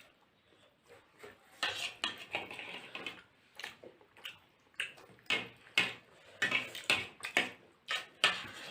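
Cutlery clinking and scraping against a plate while eating, a dozen or so sharp, irregular clinks starting about a second and a half in.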